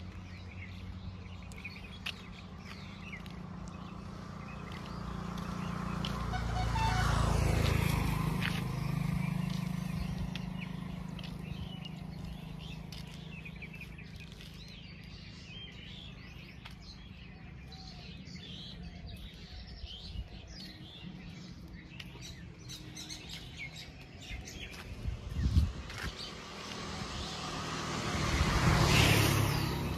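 Roadside ambience: birds chirping over a steady low hum, with a vehicle passing on the road about seven seconds in and another near the end. A single sharp knock about twenty-five seconds in.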